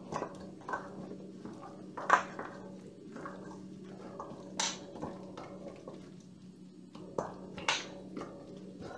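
Pork pieces being mixed by a gloved hand in a stainless steel bowl with egg and cornstarch, with occasional sharp knocks against the bowl, the loudest about two seconds in. A steady low hum runs underneath.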